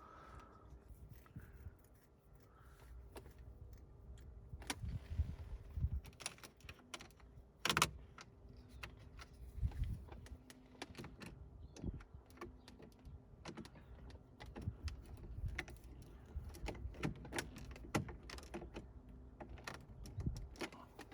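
Hand work on car dashboard trim and cabling: scattered plastic clicks, taps and rustling, with one sharper click about eight seconds in.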